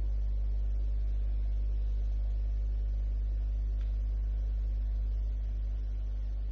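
Steady low hum with faint background hiss.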